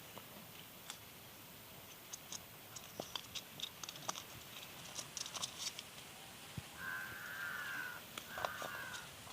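Scattered light clicks and taps, then a cat meowing twice near the end: one drawn-out meow and a shorter one.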